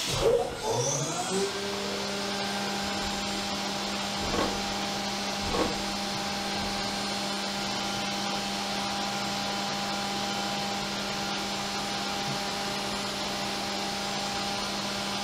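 CNC vertical milling machine's spindle spinning up, its pitch rising over about the first second, then running at a steady whine. Two brief louder sweeps come about four and five and a half seconds in.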